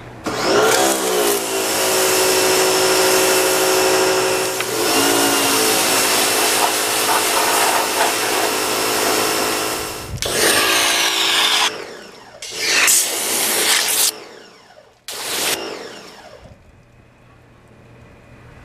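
Sun Joe SPX3000 electric pressure washer running, its motor and pump whining under the hiss of the water jet, in one long spray of about ten seconds followed by three shorter trigger pulls. The jet is spraying into a wash bucket, whipping the car soap into suds.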